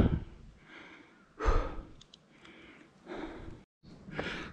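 A hiker breathing hard while climbing uphill: loud breaths in and out, about one a second.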